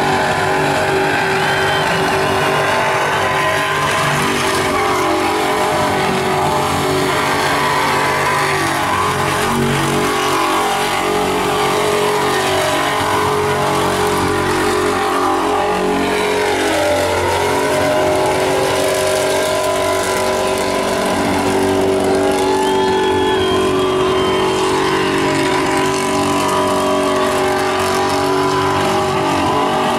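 Holden VP Commodore V8 engine held at high revs through a burnout, its rear tyres spinning on the pad. The engine note stays fairly steady, with a brief dip in revs about halfway through.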